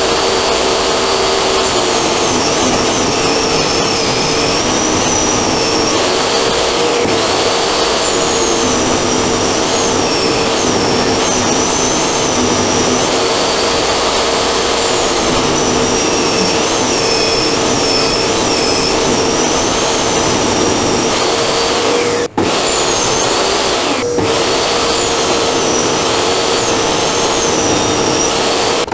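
Benchtop table saw running: a steady motor hum with a high whine that wavers as a pine board is ripped through the blade. The sound breaks off briefly twice about two-thirds of the way through.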